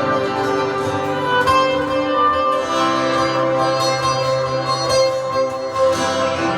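Live instrumental worship music: sustained, held chords with notes changing over them, steady in level.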